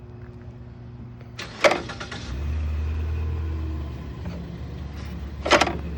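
Vintage Carrier window air conditioner being switched on: a click of the selector switch, then a loud low electrical hum as the reciprocating compressor strains to start. The hum eases after a couple of seconds, and another switch click comes near the end.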